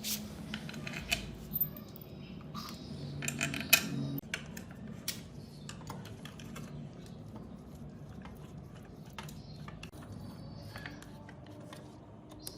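Small metal parts and hand tools clinking and tapping in scattered sharp clicks, busiest about three to four seconds in, over a faint low steady hum.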